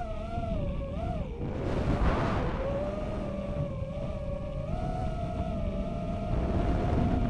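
Racing quadcopter's Racerstar BR2306S 2700 kV brushless motors spinning DAL 5045 three-blade props in flight, heard through the onboard camera's microphone. The whine wavers in pitch with the throttle for the first second or so, then holds steadier and climbs slightly about five seconds in, over a heavy low rumble of wind and frame vibration.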